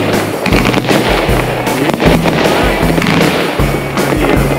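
Background music with a steady bass beat.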